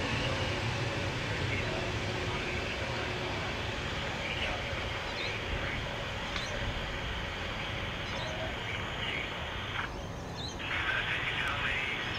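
Steady low rumble of jet aircraft engines with birds chirping over it.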